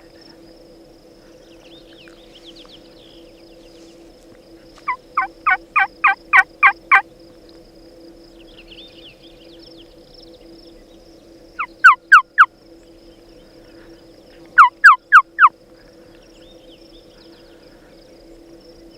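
Turkey yelping: three runs of sharp, falling yelps, about eight in a row, then four, then four more, loud and close. A steady insect drone runs underneath.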